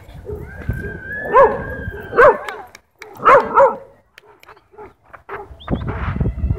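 Dogs in a rough-play pile, one giving four short, loud yelps that rise and fall in pitch, the last two close together, with a thin whine before the first.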